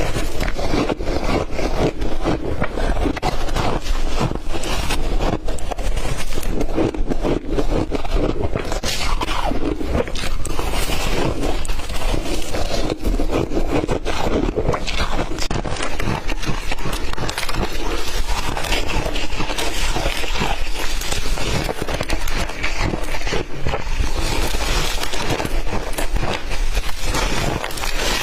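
Crunchy ice being bitten and chewed close to the microphone: a dense, continuous crackling and crunching with many rapid cracks.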